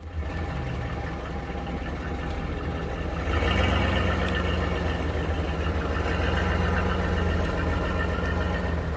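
A vehicle engine running steadily, growing louder about three seconds in.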